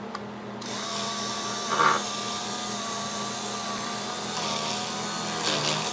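Small electric drill starting up about half a second in and running steadily with a high whine, drilling a pilot hole for a nail in a thin wooden strip; its pitch dips briefly near the end as the bit bites.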